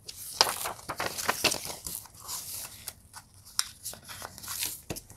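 Paper episode-guide insert rustling and crinkling as it is folded up and handled, with scattered sharp clicks and crackles.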